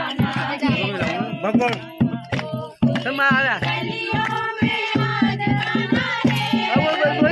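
Women singing a Holi folk song together to steady strokes of a dholak hand drum. The song breaks off briefly about three seconds in, then goes on.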